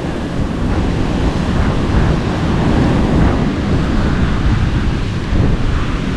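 Wind buffeting the microphone, a loud steady rumble, over the wash of surf on the beach.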